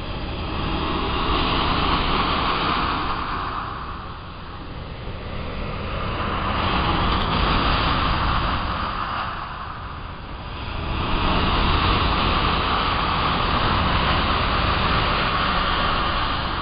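Black Sea surf washing in over stone breakwater slabs and the shore, the rush of foaming water swelling and fading in three long surges, over a steady low rumble.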